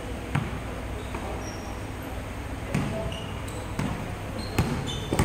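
A basketball bouncing on a wooden indoor court, a handful of separate thumps at uneven intervals, with short high squeaks of sneakers between them.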